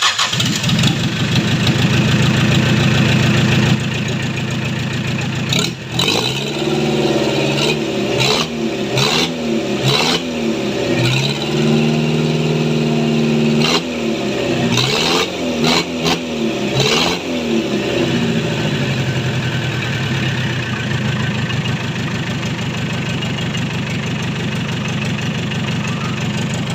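Mitsubishi L300 engine running on a test run after repair: it runs steadily at first, is revved up and let fall back repeatedly through the middle, then settles to a steady idle.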